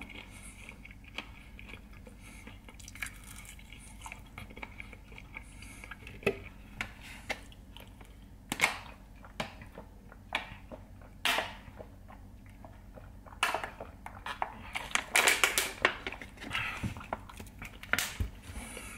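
A man chewing a chicken wing, with scattered short crunching and wet mouth sounds over a low background hum. Partway through he drinks from a plastic water bottle.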